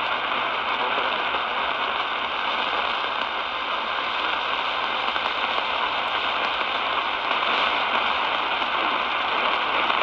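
Steady hiss and static from an Eton Elite Traveler portable radio tuned to 1260 kHz on the AM (medium wave) band, with no clear voice coming through.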